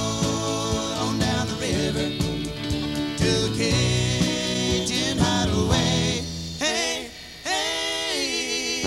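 Live country band with electric and acoustic guitars, fiddle and drums playing. About six seconds in the band drops out and a voice holds a long wavering note almost unaccompanied.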